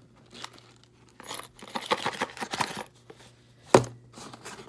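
Paper packing rustling and crinkling for about two seconds as a small box is unpacked, followed by a single sharp knock.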